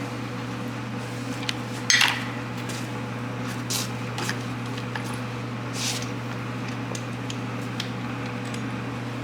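A few scattered clinks and knocks of metal tools and parts being handled and set down, the clearest about two seconds in, over a steady low hum.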